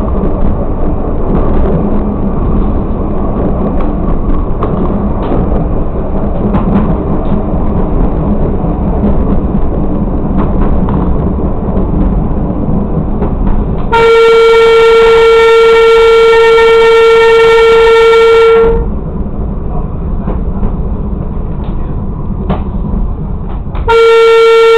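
Railcar's horn sounding one long steady blast of about four seconds and, near the end, a second short blast on the same single note, over the steady running noise of the railcar on the track. The blasts are the warning for an unguarded road crossing ahead.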